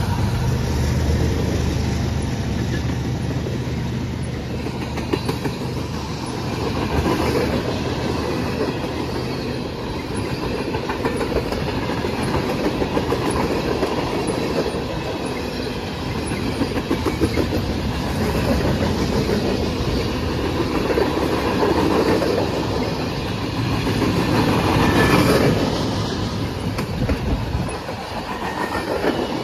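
A freight train passing close by: the diesel engine of a mid-train distributed-power locomotive is heard in the first few seconds, then a long string of tank cars, boxcars and hoppers rolls past, the wheels clicking steadily over the rail joints.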